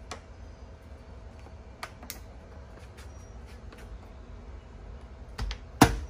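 Scattered light plastic clicks and taps as a 2020 Land Rover Defender's A-pillar trim piece and its clips are worked into place by hand, with a louder click near the end.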